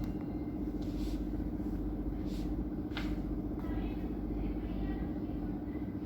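A steady low mechanical hum, with a few soft clicks spread over the first half.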